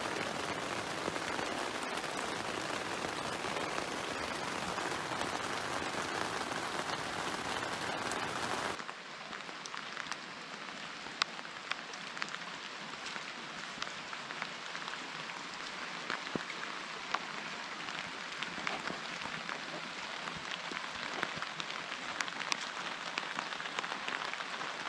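Steady rain hiss. About nine seconds in it cuts abruptly to quieter rain, with many separate drops ticking on a hard surface.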